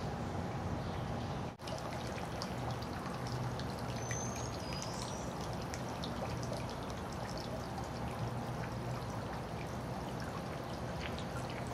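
Water pumped out of a flooded basement pouring steadily into the yard from the discharge, a constant splashing flow, with a brief dropout about one and a half seconds in.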